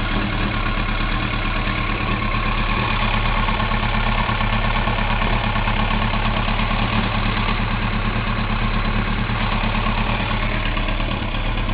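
1999 Yamaha YZF-R1's inline-four engine idling steadily while hot, carrying an engine noise that the owner hears only when the engine is warm and cannot place.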